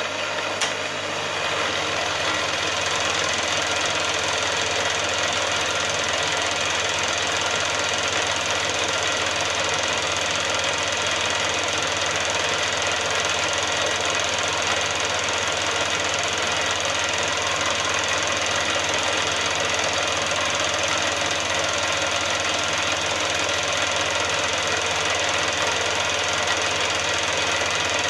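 Milling machine fly cutting the face of a steel block: the spinning single-point cutter and the spindle motor running steadily under cut. The sound comes up about a second in and then holds even.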